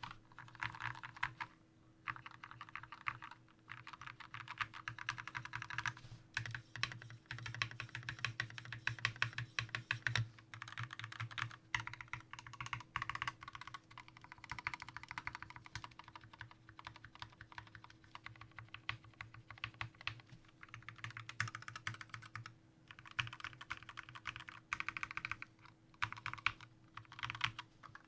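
Fast continuous typing on a Glorious GMMK TKL mechanical keyboard with lubed Gateron Yellow linear switches and thick PBT keycaps, in quick runs of keystrokes broken by a few short pauses.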